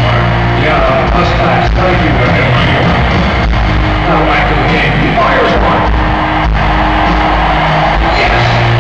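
Loud live rock band playing, with held bass notes and drums, recorded from among the audience in an arena.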